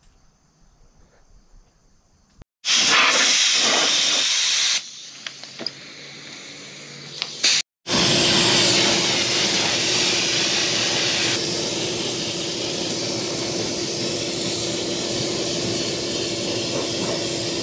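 Compressed-air paint spray gun hissing as it sprays paint onto a headlight housing: quiet for the first two seconds or so, then spray passes with a short break near the middle, followed by one long steady spray.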